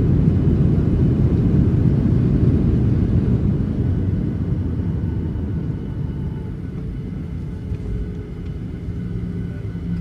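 Boeing 737-800 landing rollout heard from inside the cabin: a low rumble of the CFM56 engines in reverse thrust and the wheels on the runway, fading from about four seconds in as the jet slows. A steady low hum comes in near the end.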